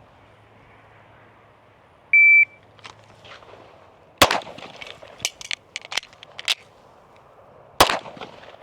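A shot timer's short start beep, then two 9mm Staccato P pistol shots about three and a half seconds apart, with smaller clicks and knocks between them. Neither shot hits the steel targets.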